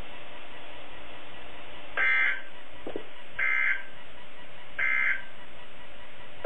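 Three short bursts of Emergency Alert System data tones, the End of Message code that closes the Required Monthly Test, about a second and a half apart. They sound over the steady static hiss of a weather radio.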